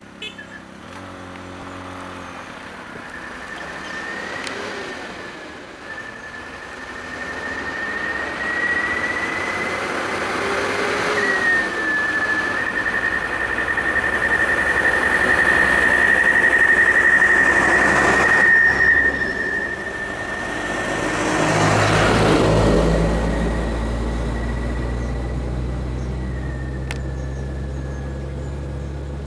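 Road traffic going past: vehicles swelling and fading by in turn, with a low engine hum setting in past the middle. A steady high-pitched whine runs under most of it.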